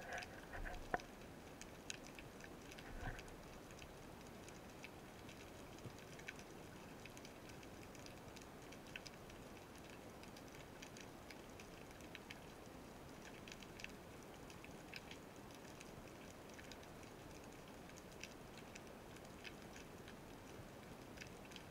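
Faint underwater ambience recorded through a waterproof camera housing: a low steady hiss with scattered faint clicks, and a couple of soft knocks in the first few seconds.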